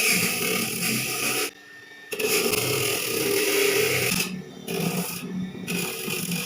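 Rough rasping scrape of abrasive work on the katana's steel, broken by sudden short gaps about a second and a half in and twice more past the four-second mark.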